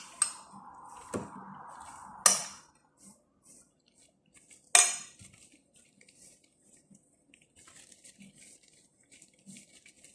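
A few sharp clinks of kitchen dishes or utensils in the first five seconds, the loudest about two and five seconds in, then only faint soft rustling and ticking as gloved hands roll stuffed grape leaves.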